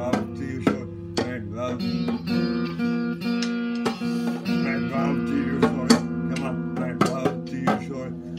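Guitar music: plucked and strummed guitar chords that ring on, with sharp strikes falling about every half second.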